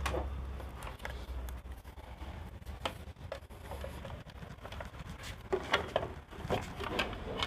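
Scattered light clicks, taps and rattles of hard plastic parts being handled as a Yamaha FZ-S headlight's wiring is plugged back in and the headlight assembly is refitted, busier near the end.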